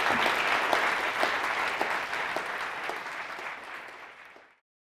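Audience applauding, a dense patter of many hands clapping that tapers off and then cuts to silence near the end.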